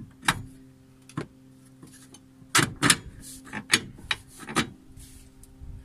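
Steel seat slider rails being handled and set onto a seat swivel base plate: a string of sharp metallic clunks and knocks, about six in all, over a faint steady hum.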